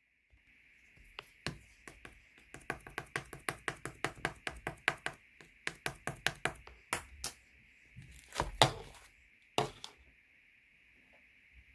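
Slime being pressed and poked by hand, making a quick run of sticky clicks and pops, about four a second at its busiest, with a louder cluster near the end before it stops.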